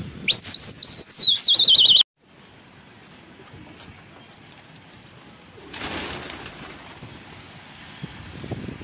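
A loud, shrill whistle rises and then warbles fast, cutting off abruptly about two seconds in. Then comes a brief rush of pigeons' wings flapping about six seconds in, over quiet background.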